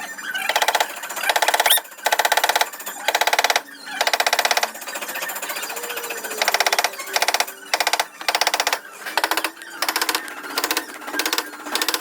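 Air tool in a body shop rattling with a rapid hammering in about a dozen short bursts, each under a second, triggered on and off. The bursts get shorter and come closer together in the second half.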